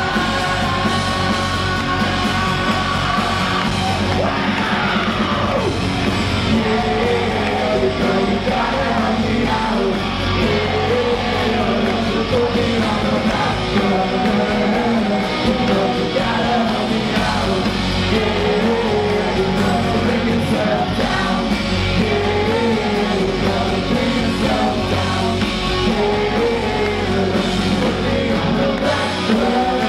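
Live rock band playing a song loud: electric guitars, bass and drums, with singing, heard from among the audience in the room.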